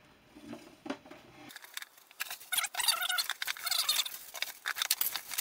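Fast, scratchy rubbing and scraping starts about a second and a half in: the ice maker's dirty, possibly rusty surface being scrubbed to see whether the grime comes off.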